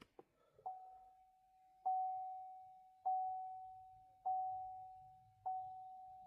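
2021 GMC Acadia's electronic warning chime dinging five times, about once every 1.2 seconds, each ding a single pitch that fades out slowly. It sounds while the car is in the key-programming procedure with the ignition off.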